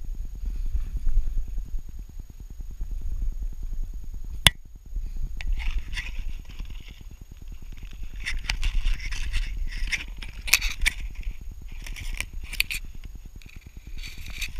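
Dry grass stalks scraping and crackling against a camera mounted on a walking dog's back, over a steady low rumble from the mount jostling with the dog's movement. There is a sharp click about four and a half seconds in, and the scratchy rustling comes in clusters through the second half.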